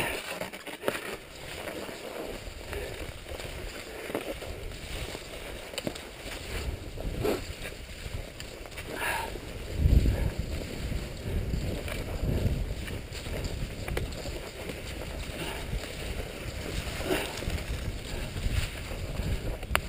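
Tisa cross-country skis sliding and swishing over snow at a steady glide, with a few light knocks and wind buffeting the microphone, loudest about halfway through.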